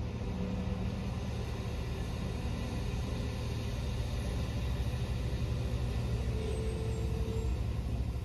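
Semi truck's diesel engine idling, heard from inside the cab: a steady low rumble.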